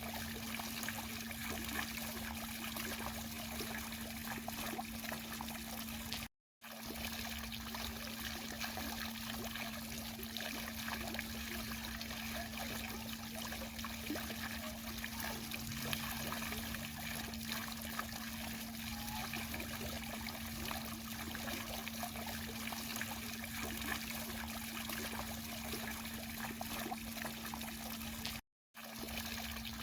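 Garden fountain water splashing and trickling steadily, with a steady low hum under it. The sound cuts out completely for a split second twice.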